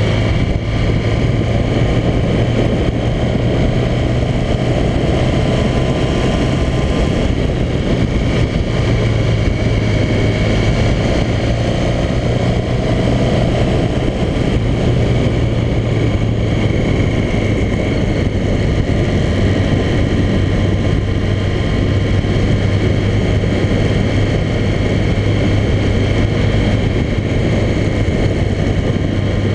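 Motorcycle engine running steadily at cruising speed, mixed with wind and road noise on the bike-mounted camera.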